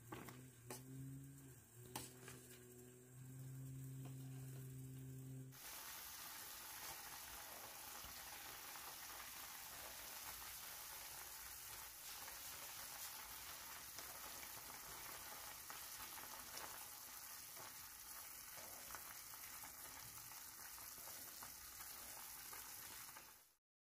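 A pot of millefeuille nabe in shabu-shabu broth boiling hard on a gas burner: a steady bubbling hiss that starts abruptly about five seconds in. Before that, a few light clinks of a steel ladle against the pot over a low steady hum.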